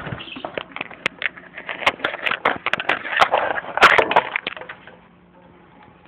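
Close-up rustling and scraping with many sharp clicks and cracks, like something being handled against wood, dying down about five seconds in.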